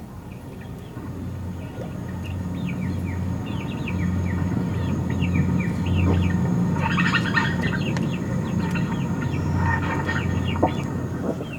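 Many birds chirping in quick, short calls, with two louder bursts of calling about two-thirds of the way through and near the end, over a steady low hum.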